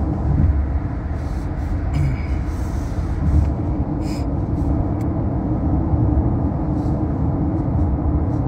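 Steady low rumble of a car's road and engine noise heard inside the cabin, with a few faint ticks.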